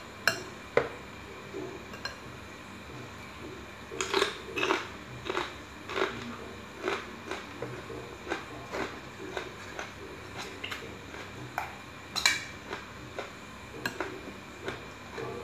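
Spoon clinking and tapping against glass and ceramic bowls while eating: irregular sharp clicks about once a second, with one louder clink near the end.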